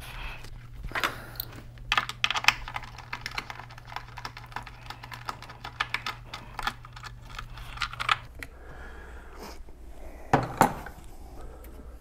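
Ratchet wrench clicking in irregular runs as the battery hold-down bolt is backed out, with a couple of louder metal knocks near the end.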